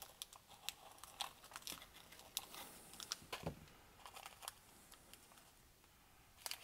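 Plastic snack wrapper crinkling as it is cut open with a knife and picked apart by hand: faint, scattered crackles that thin out after about four seconds.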